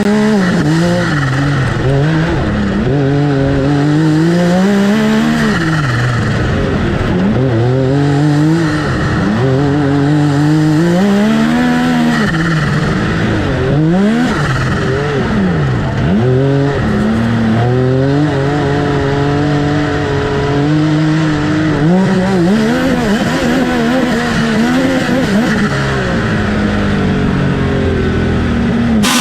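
Side-by-side UTV engine racing hard, its pitch climbing and dropping over and over as the driver accelerates, lifts and shifts, about once every one to two seconds.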